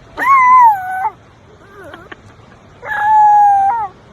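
A pet animal giving two long, high howling calls of about a second each. The first wavers and falls in pitch, and the second is held nearly level.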